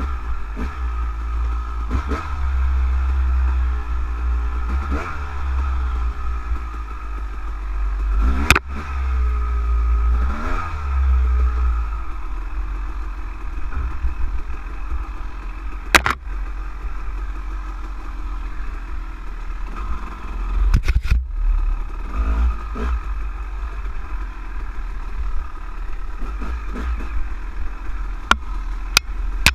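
Off-road motorcycle engine revving up and down as the bike rides a rough, wet woodland trail, with a few sharp knocks and clatter from the bike over the ground.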